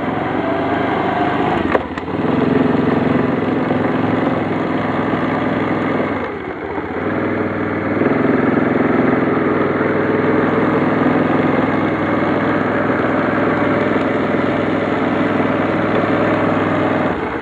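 Kazuma ATV engine running steadily as the quad putts along at low speed. The engine sound drops briefly about two seconds in and again around six to seven seconds, then picks back up each time.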